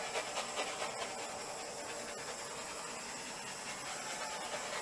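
Small handheld torch's flame hissing steadily as it is passed over wet acrylic paint to pop air bubbles.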